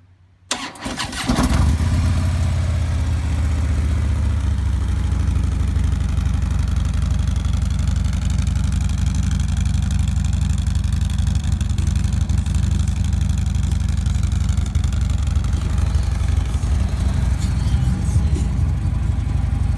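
2015 Harley-Davidson Ultra Limited V-twin engine cold-started through its stock exhaust: a brief crank of the starter about half a second in, catching within a second, then settling into a steady idle.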